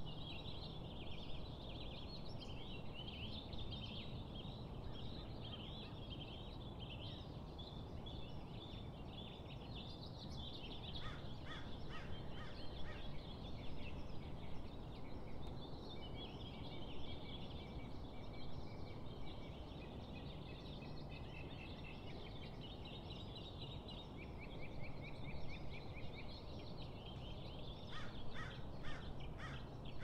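Several songbirds singing together in a busy chorus of high chirps and trills, over a low, steady background hiss. Twice, a run of quick, sharper repeated notes stands out: about eleven seconds in and again near the end.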